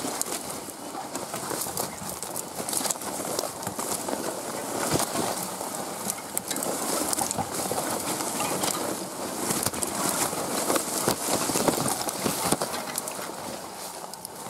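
Brush and tall grass swishing and scraping against a pack-wheel game cart's panniers and frame as it is pushed downhill through dense vegetation, with many small crackles and clicks.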